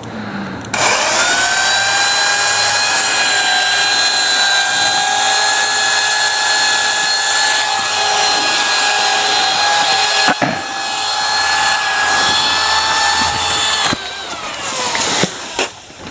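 Electric saw starting up with a high-pitched motor whine and cutting through a maple limb at steady speed. There is a brief dip about ten seconds in, then the motor winds down with a falling pitch near the end, followed by a couple of clicks.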